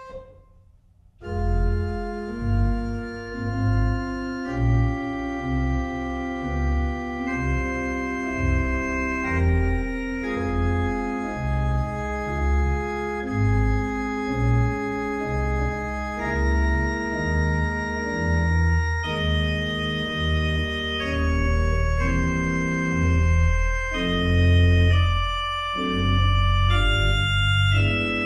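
Pipe organ playing slow sustained chords over deep pedal bass notes. It comes in after a brief pause about a second in.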